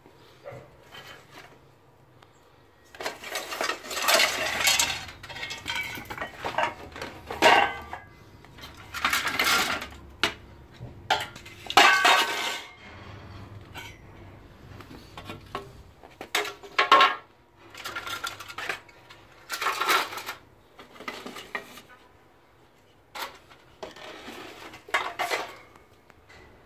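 Poles, pipes and sticks of junk being shifted about in and around a plastic crate, clattering and clinking on and off with several loud knocks.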